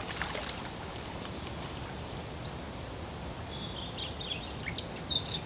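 Riverside outdoor ambience: a steady low background hiss, with a few faint bird chirps in the second half.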